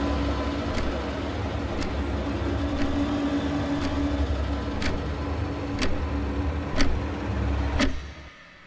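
Low, dark film-score drone under the ticking of a wall clock, about one tick a second. Both stop suddenly near the end.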